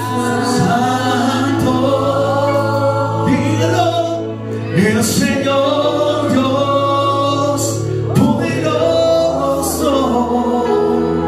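Church worship band playing a gospel-style song: voices singing a melody over sustained instrumental chords and bass, with a few sharp crashes.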